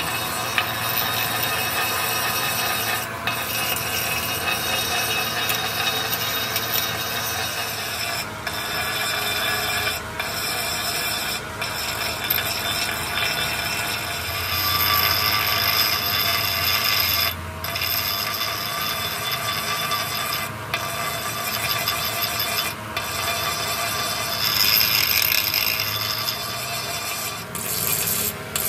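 Hand-held abrasive grinding wheel grinding down the damaged, repaired surface of a cast-iron tractor engine block: a steady, harsh grinding rasp. It drops out briefly each time the wheel lifts off the metal and grows harder and louder from about halfway through.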